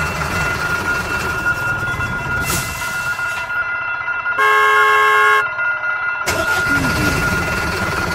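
A horn sounds once, a single pitched blast of about a second, about halfway through. Under it runs a steady engine-like rumble with thin high steady tones.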